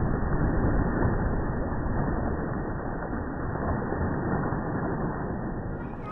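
Slowed-down splash of a large dog leaping into a swimming pool: a dull, low rushing wash of water that is loudest at first and slowly fades.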